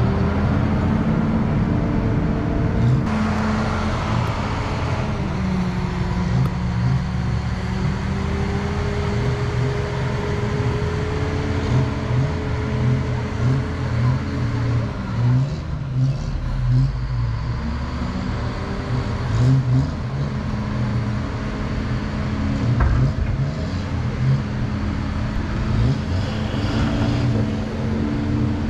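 Wheel loader's diesel engine working, its pitch rising and falling as it revs and eases off, with occasional knocks.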